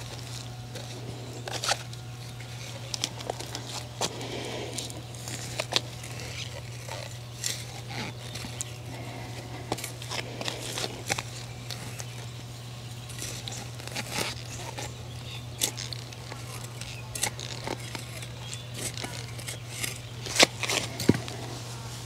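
Hand digging tool scraping and digging into garden soil while seedlings are set out, with scattered irregular clicks, scrapes and crinkles, the sharpest near the end. A steady low hum runs underneath.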